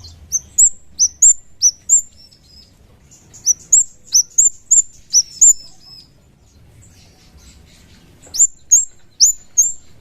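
Scarlet-headed flowerpecker (kemade) calling: short, sharp, high chips that sweep upward. They come in three quick runs of four to eight notes, with pauses between the runs.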